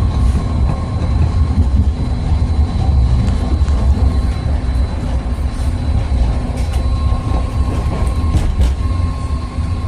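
Loud rumble of a BART rapid-transit car heard from inside while it runs, with a steady high whine and a few sharp creaks and clicks in the second half.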